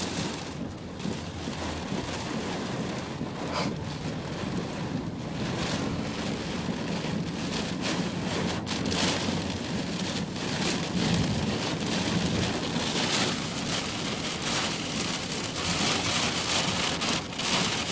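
Heavy rain and gusty wind in a severe thunderstorm: a steady rushing hiss that swells and eases, with rain pattering on a surface.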